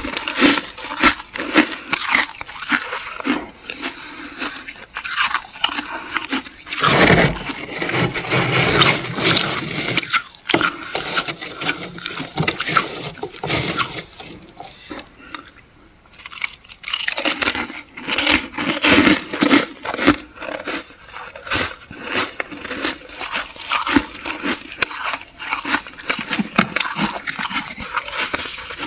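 Dry, flaky freezer frost crunching as it is eaten: a dense, irregular run of crackly crunches, with a louder stretch about seven seconds in.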